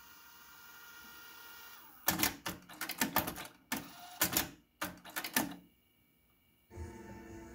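Sony TC-WR87ES cassette deck transport rewinding a 120-minute tape with a steady whirring whine. About two seconds in it gives way to a run of sharp mechanical clicks and clunks from the transport. After a short silence, music playback starts near the end.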